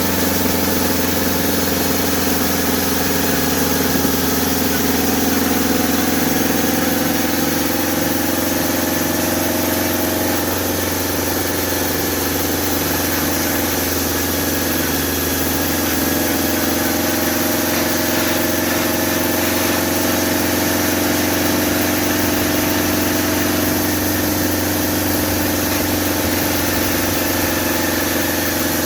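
Homemade sawmill with a 2-inch blade running steadily, slower than normal, with a steady mechanical hum whose pitch dips slightly a few times, most noticeably about ten to fifteen seconds in.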